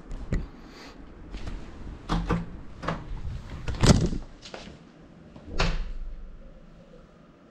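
Handling knocks and clunks picked up by the drone's own camera as the small FPV cinewhoop is held and then set down on the floor. The knocks are irregular, the loudest about four seconds in as it lands on the floor, then it goes quiet; the motors are not running.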